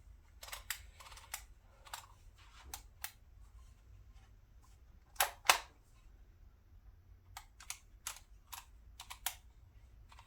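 Scattered clicks from a hand-operated DYMO Organizer Express embossing label maker being worked, its character wheel and squeeze handle clicking, with two louder snaps about five seconds in.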